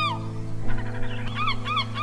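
Background music with sustained tones, and an animal calling rapidly over it, about four short rise-and-fall notes a second, with a brief break just after the start.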